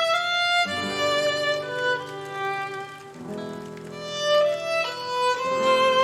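Background music: a slow melody of held notes over sustained chords, the chords changing about every two seconds.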